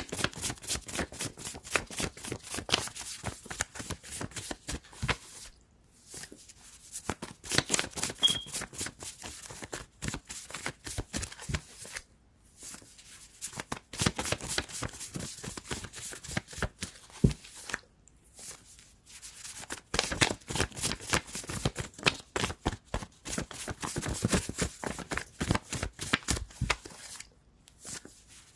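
A deck of tarot cards being shuffled by hand: rapid riffling clicks of the cards in several spells, each a few seconds long, with brief pauses between them.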